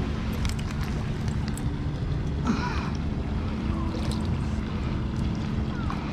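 Electric RC F1 speedboat running on the water, a faint steady motor hum under heavy wind rumble on the microphone.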